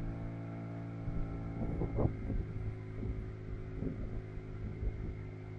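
A boat's motor running steadily at an even pitch, with irregular gusts of rushing noise over it.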